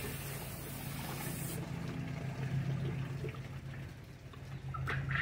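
Electric drum poultry plucker running with a steady motor hum while plucking quail, water from a hose spraying into the drum; the spray hiss stops about a second and a half in, leaving the motor hum and a few clicks near the end.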